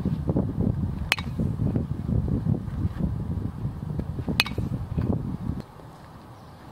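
Two sharp cracks of a bat hitting soft-tossed baseballs, about three seconds apart, each with a brief ring. Under them a low, uneven rumble cuts off suddenly near the end.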